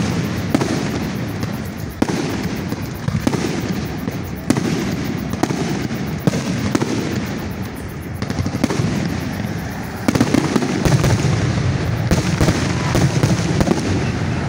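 Aerial fireworks shells bursting overhead, a sharp bang every second or two. From about ten seconds in the bursts come in a fast, louder run of pops and crackles.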